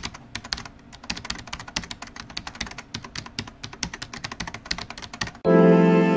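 Fast, irregular computer-keyboard typing clicks. About five seconds in they stop, and a louder sustained music chord begins.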